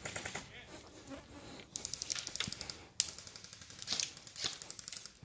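Airsoft gun firing on full auto: two rapid bursts of clicking shots, the first about two seconds in and the second just after three seconds.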